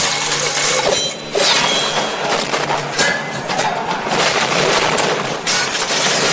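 Action-film battle sound effects: a chariot crashing and breaking apart with smashing, splintering debris in a loud, dense mix, with a film score underneath.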